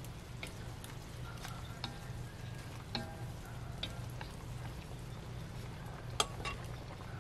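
Sour fish soup simmering in a metal wok as long chopsticks stir it and knock against the pan, giving scattered sharp clicks, the loudest about six seconds in. A steady low hum runs underneath.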